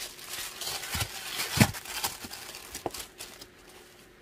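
Plastic packaging crinkling and rustling as it is handled and pulled off a box, with a single thump about one and a half seconds in; it dies down in the last second.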